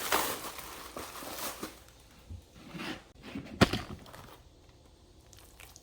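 Scraping and rustling from handling a box of drywall joint compound and its plastic bag, then one sharp knock about three and a half seconds in.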